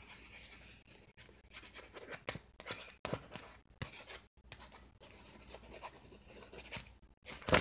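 Faint scratching and rustling handling noise on a phone's microphone, a few short scrapes spread out, with a louder rustle near the end.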